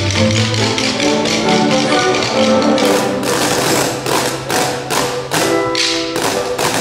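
A group of children drumming with sticks on rows of pails, striking a steady beat of taps over recorded backing music that carries the melody.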